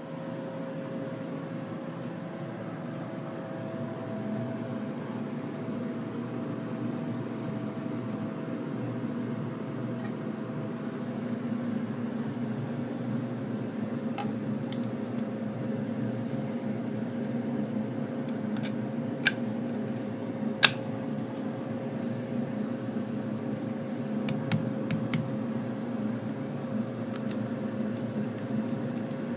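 Steady machine hum with a faint held whine from a powered Haas TM-1 CNC mill. A few light clicks and taps come through in the middle as a Delrin plate is handled on the steel mill table.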